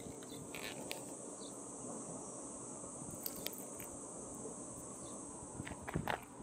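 Insects chirring in a steady, high-pitched drone, with a few faint clicks scattered through it.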